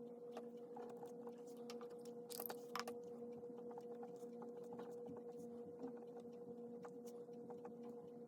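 Pen writing on paper by hand: small scratches and ticks of the strokes, with a slightly louder cluster between about two and three seconds in, over a steady electrical hum.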